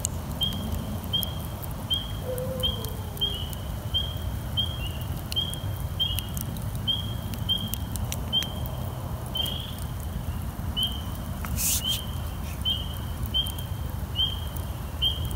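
Spring peepers calling: a steady run of short, high peeps, about one and a half a second, with now and then a second frog overlapping at a slightly different pitch. Under them, a campfire's coal bed crackles softly, with one sharp pop about three quarters of the way through.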